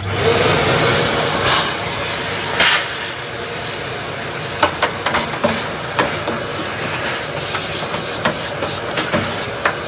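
Vacuum cleaner switched on, starting abruptly and running with a steady loud rush as its hose nozzle sucks dust and grit off the sheet-metal bottom of a boiler casing. Scattered clicks of debris rattle up the hose.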